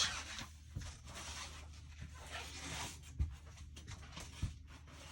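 Faint rustling and handling noise with two short soft knocks, about three and four and a half seconds in, over a low steady hum.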